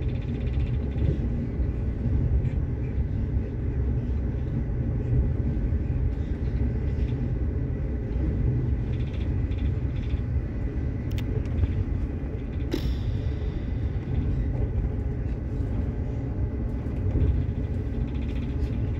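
Steady low rumble of a passenger train running along the track, heard from inside the carriage, with one sharp click about two-thirds of the way through.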